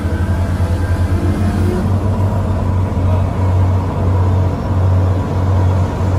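Diesel engine of a 125-ton excavator running under load, a deep steady drone that swells and eases a little as the machine works.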